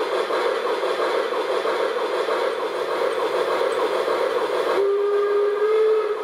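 Sound decoder in an LGB model of a Harz narrow-gauge 2-10-2T steam locomotive playing its steam-engine sounds: a steady rushing steam noise, then about five seconds in a steam whistle blows one held note for about a second and a half, rising slightly at the end before it cuts off.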